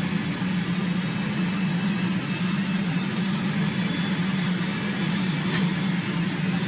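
A steady low droning hum with no break, and a faint tick about five and a half seconds in.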